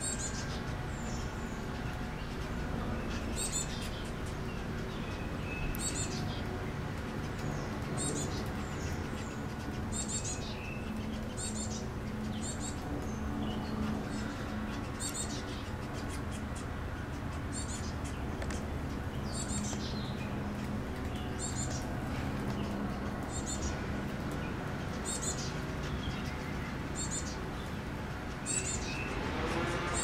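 Small bird repeating short, high-pitched call notes that drop in pitch, about one every second or two, over a steady low hum.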